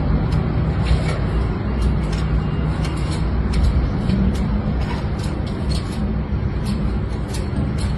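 A steady low engine-like rumble with scattered small clicks over it.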